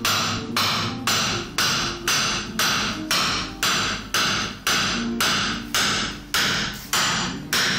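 Background music with a steady, evenly spaced clapping or tapping beat about twice a second over a plucked melody.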